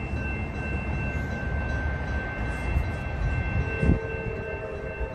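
Grade-crossing warning bell ringing steadily as the crossing gates come down, over a low rumble. About three and a half seconds in, a train horn begins to sound, with a brief thump just after it starts.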